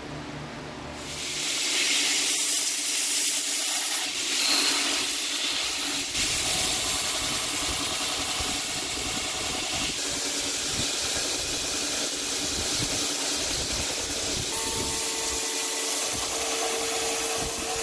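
Belt grinder running with steel held against the abrasive belt: a steady, loud grinding hiss that sets in about a second in as the small san mai cleaver blade is ground.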